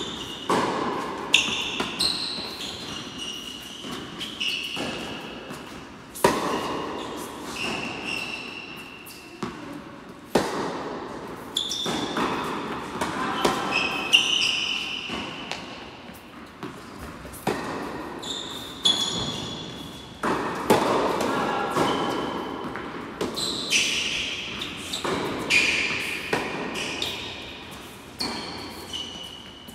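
Tennis rally: rackets striking the ball and the ball bouncing on a hard court, sharp hits about every second or so, each echoing through an indoor hall, with short high squeaks between the hits.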